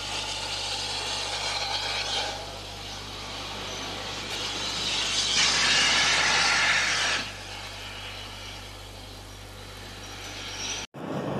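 Soundtrack of the GNSR 4-4-0 steam locomotive Gordon Highlander on an old recording with a steady mains hum under it. A louder hissing rush starts about five seconds in and lasts about two seconds. The sound cuts off sharply near the end.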